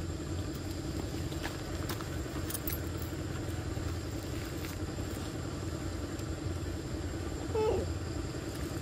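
A steady, low engine-like hum, such as a motor vehicle idling, with a few faint clicks in the first three seconds. About three-quarters of the way in there is one brief wavering call.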